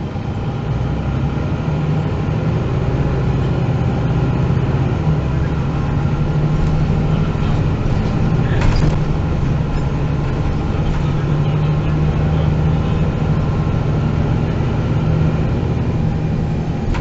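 Engine of a MAN NG 313 articulated bus, a six-cylinder diesel, running steadily as heard from inside the bus. It grows louder about half a second in and then holds a steady low hum, with one brief click or rattle about halfway through.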